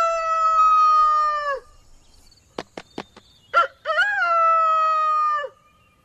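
A rooster crowing twice. Each crow rises into one long held note that drops off at the end. Between the crows come three quick claps of the rooster flapping its wings.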